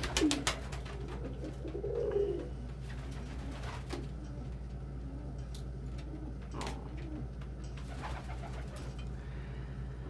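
Domestic pigeons in a loft: a quick clatter of wing flaps at the start as one takes off, then a low coo about two seconds in and a few faint clicks, over a steady low hum.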